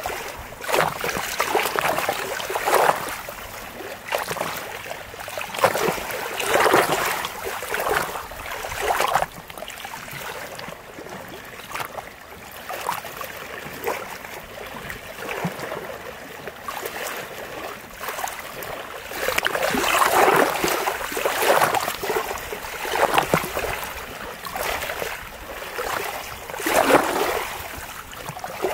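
Small lake waves lapping and splashing at the waterline close to the microphone, in irregular surges every second or two.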